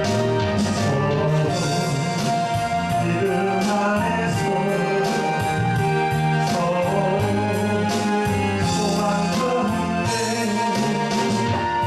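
Gospel hymn music: singing over instrumental backing with a regular beat.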